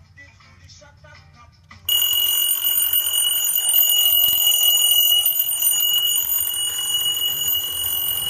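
Seiko Lumberlite alarm clock's bell ringing, starting abruptly about two seconds in and then keeping on as one steady, high, continuous ring.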